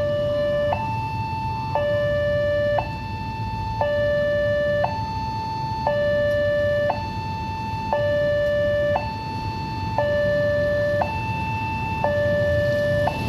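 Railway level-crossing warning alarm sounding its electronic two-tone signal, a lower and a higher tone taking turns about once a second. It warns that the crossing is closing for an approaching train.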